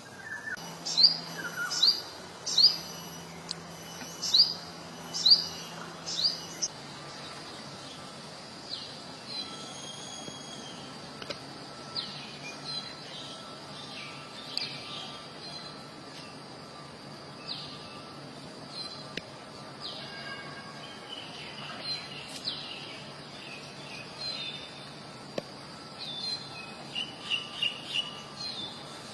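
Wild birds calling. One bird repeats a sharp, high whistle that drops quickly in pitch, about once every 0.7 s for the first six seconds. After that come scattered softer chirps and a quick run of short notes near the end, over a faint steady high whine.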